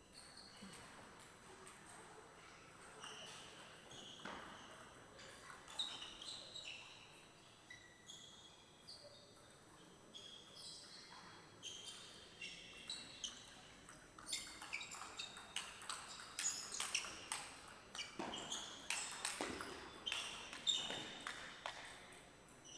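Table tennis ball clicking off rackets and the table in a fast rally in the second half, with shoes squeaking on the court floor. Before the rally there are scattered ball taps and squeaks.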